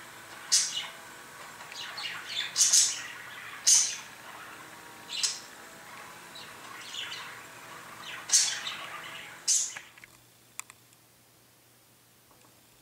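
Budgerigar chattering in a warbling stream, broken by loud, sharp, high chirps every second or two. The chatter stops about ten seconds in, and a couple of faint clicks follow.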